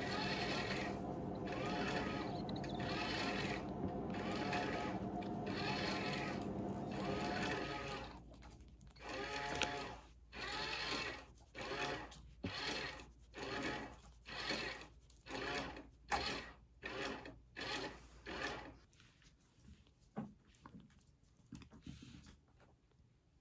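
A newborn calico kitten, about a week old, mewing over and over in thin, pitched cries. Around eight seconds in the cries become separate, a little more than one a second, and they stop a few seconds before the end.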